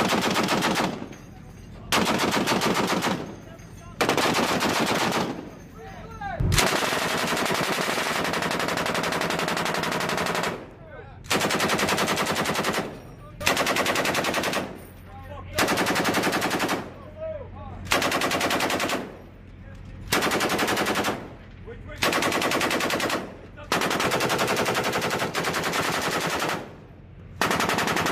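Belt-fed machine guns firing in repeated bursts of automatic fire, about a dozen in all. Most bursts last one to two seconds with short pauses between them, and one longer burst of about four seconds comes roughly a quarter of the way in.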